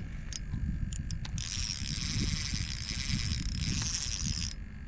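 Spinning reel's drag buzzing as a hooked fish pulls line off against it, from about a second and a half in until near the end.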